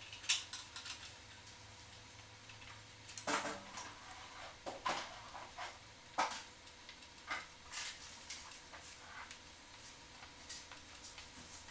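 Irregular light clicks and taps of hands working cable and fittings at the ceiling while an antenna cable is tidied: a quick run of clicks at the start, then single sharper taps every second or so.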